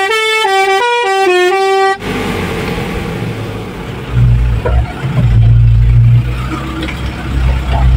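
A multi-note musical horn plays a quick tune of stepping pitches for about the first two seconds. After that the truck's engine drones low, growing louder about halfway through.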